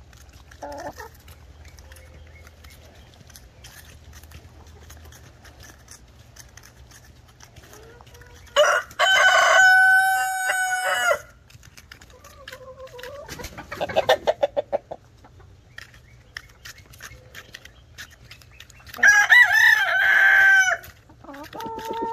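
A rooster crows twice, about nine seconds in and again near nineteen seconds, each crow a long held call and the loudest sound here. Between the crows, hens cluck in short pulsed bursts, and there are faint ticks of beaks pecking at watermelon.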